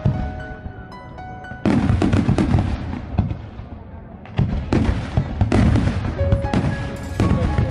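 Aerial firework shells bursting in quick volleys, dense crackling over deep booms. It eases off briefly, then fresh volleys break in sharply about two seconds in and again about four and a half seconds in.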